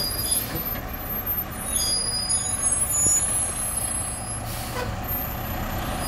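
Mack garbage truck with a McNeilus front-loader body running as it drives off slowly, its engine steady and low, with a short air-brake hiss about four and a half seconds in.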